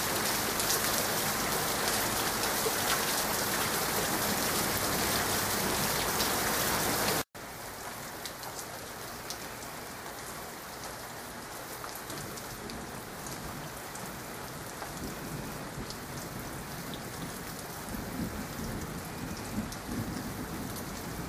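Steady rain falling, a dense even hiss. The sound cuts out for an instant about seven seconds in and comes back softer, and a low rumble of distant thunder swells under the rain in the last few seconds.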